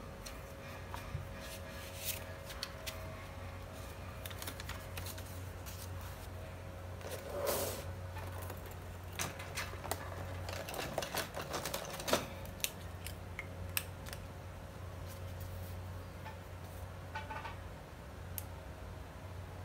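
Small clicks, taps and a brief rustle of objects being handled on a desk, with a run of clicks as a clear plastic pencil case of pens is picked up and set down, all over a faint steady hum.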